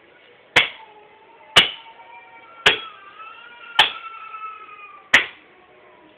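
Wood being chopped by hand: five sharp blows, about one a second.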